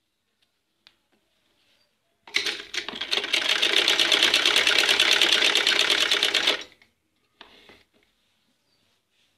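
Black domestic sewing machine stitching along a fabric hem: a run of about four seconds of rapid, evenly paced stitches starting a couple of seconds in, then a brief second run near the end.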